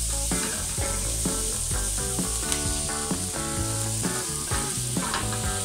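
Chopped onions and leeks sizzling in a pan as a wooden spatula stirs them, with light scrapes and taps against the pan, under background music.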